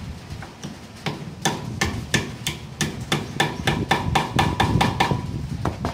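Hammer blows on metal, a quick run of ringing strikes at about three a second, starting about a second in, with two more just before the end.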